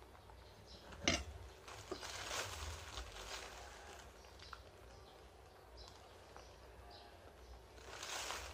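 A black plastic bag rustling as it is handled, in bursts about two seconds in and again near the end, with a single sharp click about a second in.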